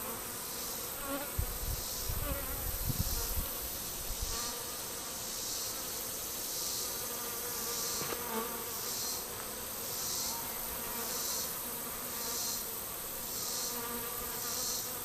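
A swarm of honey bees buzzing in a steady drone as they crowd into a hive box. A faint high pulsing repeats about three times every two seconds, and a low rumble comes in briefly between about one and a half and four seconds in.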